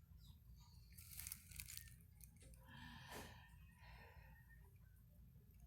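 Near silence: room tone with a few faint crackles about a second in and a soft breath-like rustle around three seconds in.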